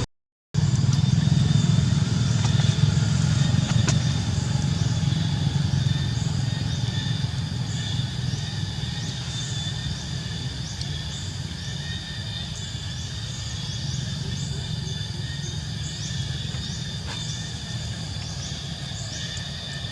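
A steady low engine-like rumble that slowly fades. From about a third of the way in, short falling high chirps repeat about once a second.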